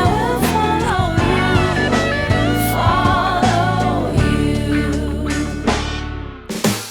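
Background pop song: a singing voice over a full band with steady chords. It fades out about six seconds in, and sharp drum hits begin near the end.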